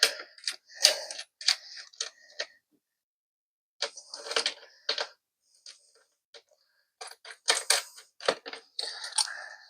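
Small metal clicks and clinks as cable ends are fastened and tightened onto battery terminals, coming in irregular bunches with a short pause about two and a half seconds in.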